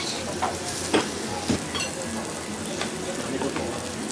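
Beef sizzling on the wire mesh of a tabletop yakiniku grill as lemon juice drips onto it, a steady frying hiss with a few sharp pops and crackles in the first two seconds.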